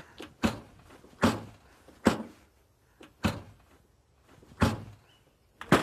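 A series of six separate knocks or thuds, irregularly spaced about a second apart, each dying away quickly.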